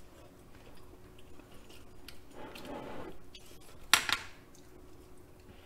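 Eating sounds: faint chewing of braised chicken, and a sharp clink of a utensil against a dish about four seconds in, followed by a smaller one.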